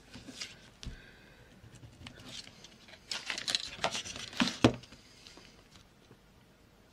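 Card stock being handled on a cutting mat: light rustling and taps as a card is turned over, with a short burst of handling noise about halfway through that ends in a sharp knock as a metal ruler is laid across the card.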